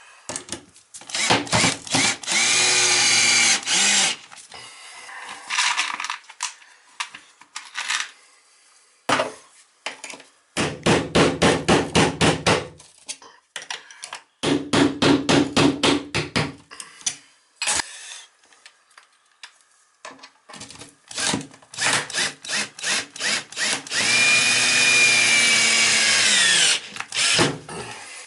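Handheld power drill run in repeated bursts: a few long pulls of the trigger, the motor's whine dropping as each ends, and runs of quick trigger pulses, about five a second.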